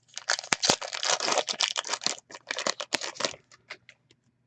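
Crinkling and tearing of a trading card pack's wrapper as it is ripped open and handled, a dense crackle lasting about three seconds with a few sharp clicks, then a few faint ticks.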